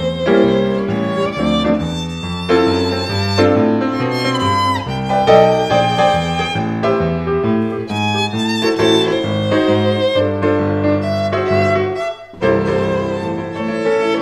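Violin playing a melody over a lower accompaniment, with a brief break about twelve seconds in.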